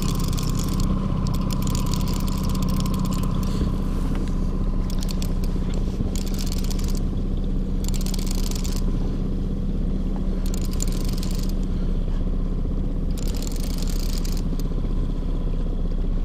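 Outboard boat motor running steadily at trolling speed, a low even drone, with stretches of hiss that come and go every second or so.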